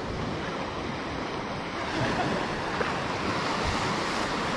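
Small shore-break waves breaking and washing up a sandy beach, a steady rushing of surf that swells louder about two seconds in as a wave runs up the sand.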